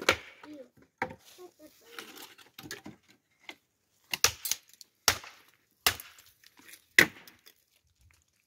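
A series of about eight sharp knocks or cracks at irregular intervals, some followed by a brief ring.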